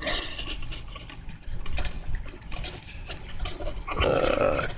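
Rustling handling noise on a hand-held camera's microphone, with a few faint small clicks. A louder rushing rustle starts about four seconds in.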